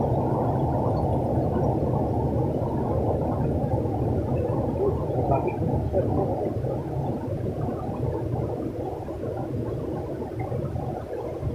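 River rapids rushing over boulders, a steady low rumble of water that eases slightly in the second half.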